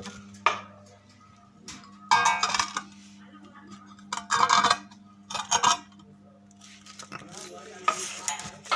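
Arc welding transformer humming steadily, with four short bursts of crackling, scraping metal work over it.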